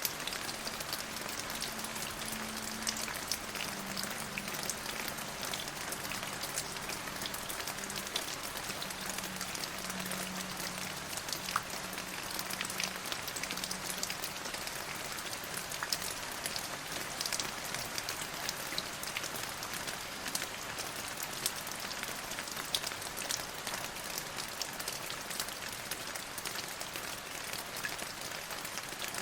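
Steady rain falling, with many separate drops ticking on a hard surface over an even hiss.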